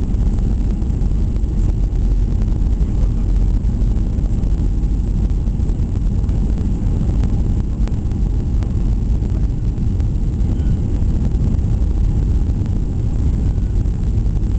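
Steady low rumble of a Boeing 737-800's engines and airflow, heard from inside the passenger cabin during the landing.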